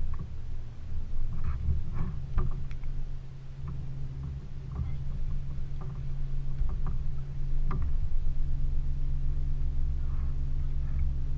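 Electric trolling motor on a canoe running with a steady low hum over a low rumble, with a few light knocks.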